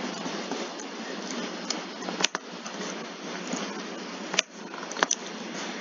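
Steady background hiss with three sharp computer mouse clicks.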